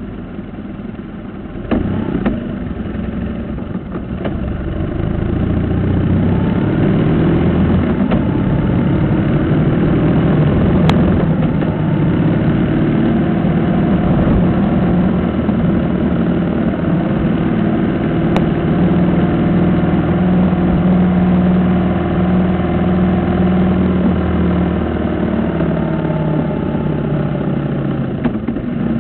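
Motorcycle engine running under way, heard close up from a camera mounted on the bike; its hum shifts in pitch with speed and grows louder about five seconds in.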